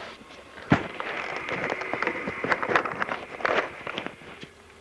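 Rustling and clicking handling noise on a camcorder microphone. A sharp knock comes under a second in, followed by about three seconds of crackling and scraping that dies away near the end.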